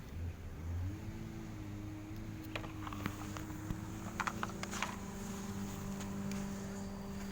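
A small motor running steadily, with a few sharp clicks scattered through the middle.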